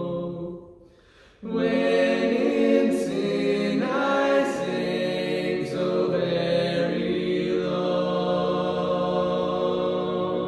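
Unaccompanied trio of two men and a woman singing in close harmony, holding long chords. The chord fades out about half a second in, there is a breath's pause, and the voices come back in together at full level.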